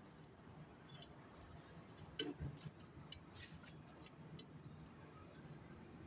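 Lovebirds shifting about in a wire cage: faint scattered ticks and taps over a low hum, with one louder knock about two seconds in.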